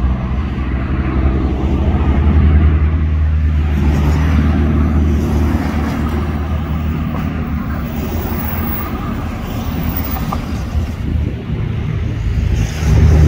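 Road traffic: car engines running low and steady as cars pass slowly close by, swelling a couple of seconds in.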